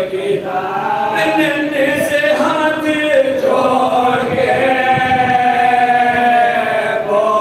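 A group of men chanting a marsiya, an Urdu mourning elegy, together. In the second half they draw out one long held note.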